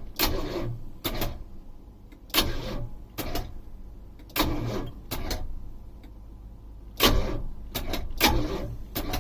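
Starter on the motorhome's Chevrolet 427 big-block trying to turn the engine over in a string of short, uneven bursts over a low hum. The engine never catches: a crank-no-start.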